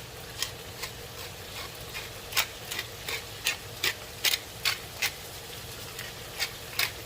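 Hand-twisted pepper mill grinding fresh black pepper over a pan: a string of sharp, irregular ratcheting clicks, over a faint sizzle from the pan.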